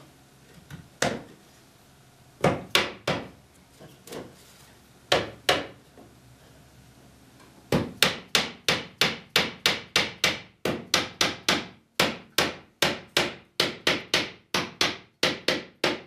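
Hammer blows on the wooden bent back of a Windsor chair, driving it down onto the spindle tenons in a dry fit. A few separate knocks at first, then from about halfway a steady run of sharp blows, about three a second.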